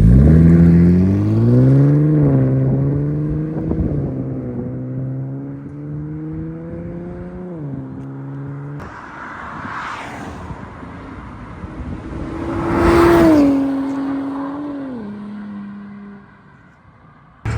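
Infiniti VR30 twin-turbo V6 running through a Tomei single-exit exhaust: the revs climb at the start, then hold fairly steady before dropping away about eight seconds in. A second short rev rises and falls about thirteen seconds in.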